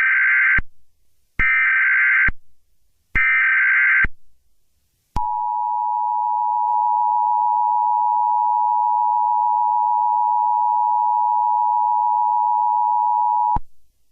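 Emergency Alert System header: three bursts of SAME digital data screech, about a second each. They are followed by the EAS two-tone attention signal, 853 and 960 Hz, which holds steady for about eight seconds and then cuts off suddenly.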